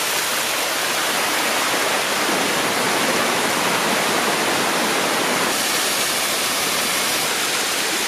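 Water pouring steadily down a waterfall's stepped rock cascades into a pool, an even, unbroken rush.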